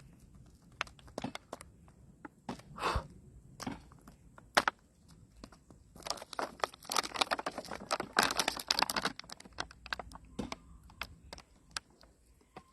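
Handling of a thin plastic seed-starting tray filled with soil: scattered clicks and crackles of flexing plastic and shifting dirt, coming thick and fast for a few seconds in the middle.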